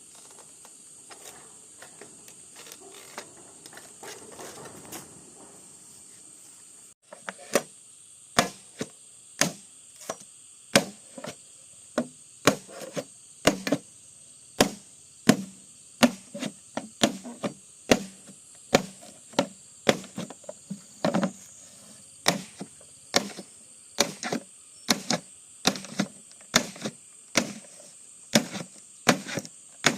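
Bamboo being chopped with a blade, a steady run of sharp blows at about two a second starting about a quarter of the way in, after some faint handling rustle. A steady high insect drone, like crickets, runs behind.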